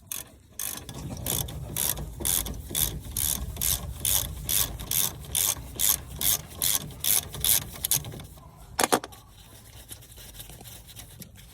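Ratchet wrench being worked back and forth on a nut, its pawl clicking in a steady rhythm of about three strokes a second for several seconds. Near the end come a sharp double clack and then quiet.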